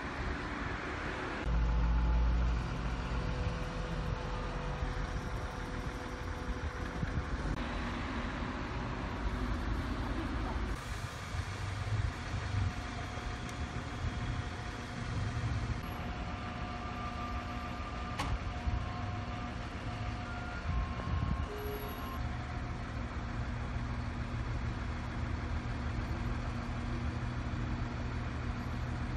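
Truck-mounted crane's diesel engine running steadily, a low continuous hum, with a brief louder low buffet about two seconds in.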